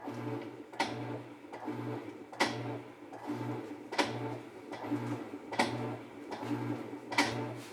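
Whirlpool vertical modular top-load washer agitating on its gentle cycle: the motor hums in short strokes about every 0.8 s, back and forth, with a sharp click about every 1.6 s, the loudest sound here.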